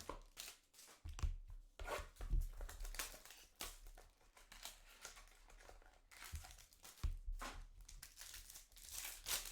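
Plastic card packaging being crinkled and torn by hand, a dense run of irregular crackles and rustles while trading cards are unpacked.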